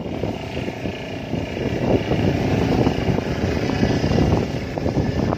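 A motorboat's engine running steadily as the boat passes offshore, with wind buffeting the microphone.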